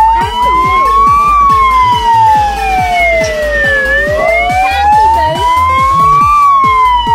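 Electronic wailing siren from a ride-on toy fire truck, its pitch sliding slowly up and then down, about one full rise and fall every five seconds. Background music with a steady beat plays under it.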